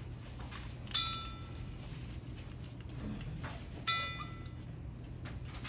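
Two sharp metallic clinks about three seconds apart, each with a short ringing tail, as something knocks against a scuba tank while its webbing is being rigged.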